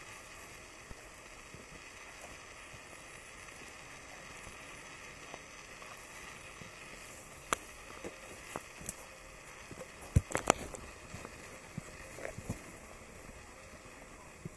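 Footsteps crunching dry leaf litter and snapping twigs on a forest trail, an irregular run of sharp crackles from about halfway in, loudest about two-thirds of the way through, over a steady hiss of forest ambience.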